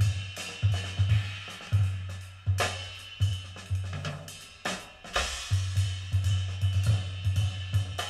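A jazz record playing back through Altec 604E coaxial horn loudspeakers: a drum kit with snare hits, hi-hat and cymbal crashes over repeated low bass notes. The bass notes drop out for about a second near the middle while the cymbals ring.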